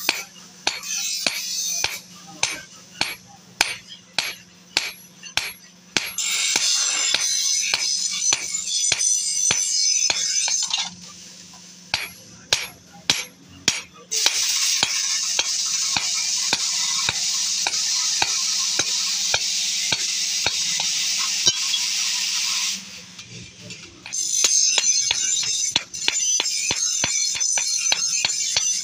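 Hand hammer striking a hot steel chaff cutter blade on an anvil in a steady rhythm of about two blows a second, drawing out and sharpening the dull edge. A loud steady hiss comes and goes underneath the blows for several seconds at a time.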